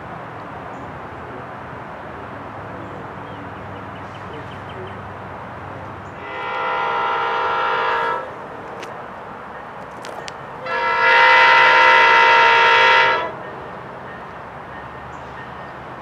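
Multi-note air horn of a Virginia Railway Express MP36PH-2 locomotive approaching, sounding two blasts: a shorter one about six seconds in and a longer, louder one about eleven seconds in.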